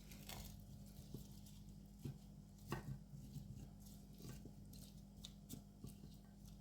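Faint, scattered light taps and clicks of vegetables and a tray being handled, over a low steady hum.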